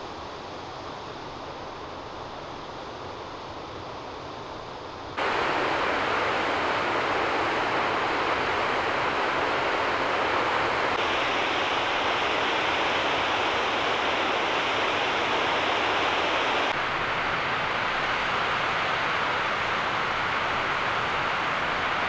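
Steady rushing outdoor noise with no distinct events, like wind or running water in open mountain terrain. It jumps abruptly louder about five seconds in and changes tone again about eleven and seventeen seconds in.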